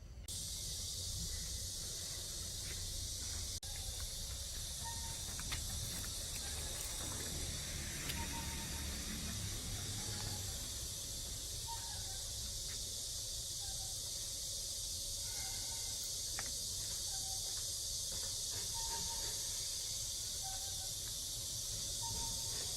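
Steady high-pitched drone of a summer insect chorus, with short faint chirping calls scattered through it.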